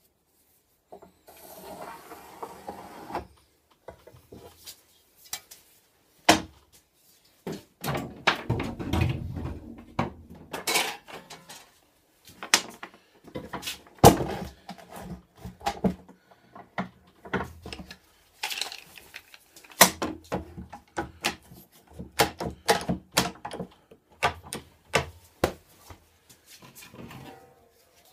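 A yellow marking crayon scratching along a steel straightedge on a rough wooden board for a couple of seconds, then scattered knocks, clicks and scrapes as the metal rule and hand tools are handled and set down on the wooden workbench.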